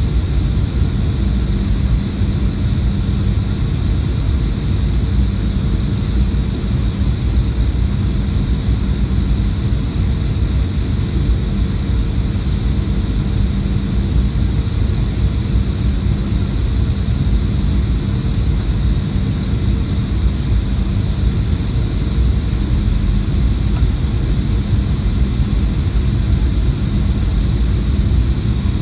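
Steady cabin drone of a Boeing 737-800 in flight, its CFM56-7B turbofan engines and airflow heard from a window seat beside the engine. It is a low rush with a faint high whine on top, and a higher tone joins about two-thirds of the way through.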